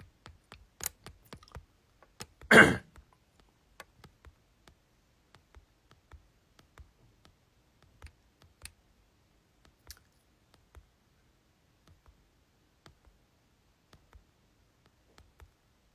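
Faint, scattered clicks and taps from fingers handling and tapping a smartphone close to its microphone, with one louder short noise about two and a half seconds in.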